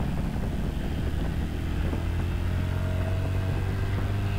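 Yamaha Vixion motorcycle's 150 cc single-cylinder four-stroke engine running steadily while riding uphill at low speed.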